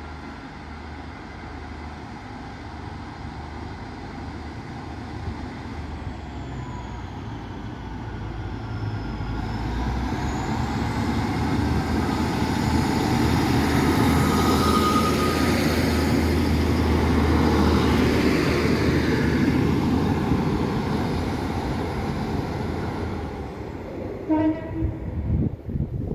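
A train passing through a station: the rumble builds over about twelve seconds, stays loudest for several seconds and then fades away.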